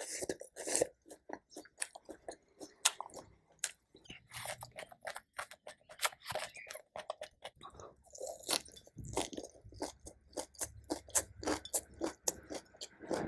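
Close-miked mouth sounds of a person chewing food: a dense run of wet clicks and small crunches.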